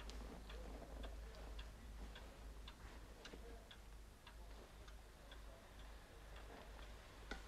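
Pendulum wall clock ticking faintly and evenly, about two ticks a second, with one sharper click near the end, over a steady low hum.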